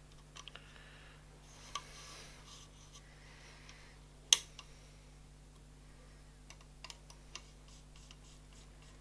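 Small clicks and taps of a hex driver and small screws and parts being handled while fitting screws to an RC car's motor pod, with a soft rustle early on, one sharp click about four seconds in, and a few light ticks near the end.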